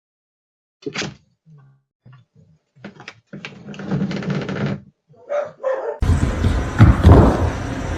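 A dog barking.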